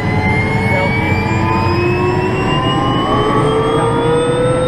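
Helicopter turbine engine spooling up: a loud, steady whine that rises slowly in pitch, over a steady low hum.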